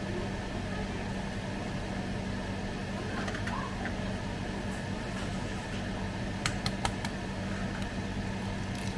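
Steady hum of a kitchen appliance's fan, with a constant low tone under it. A few light clicks come about two-thirds of the way through.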